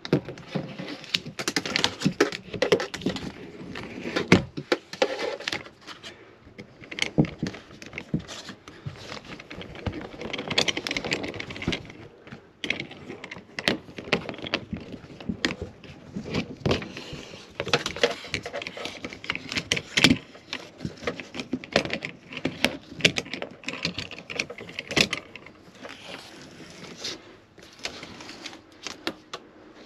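Old caravan window trim strip being pulled by hand out of its channel in the window frame, making many irregular clicks, crackles and rustles.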